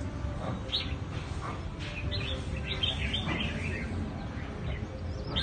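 Several caged songbirds chirping and singing in short phrases, heard a few times over a steady low background rumble.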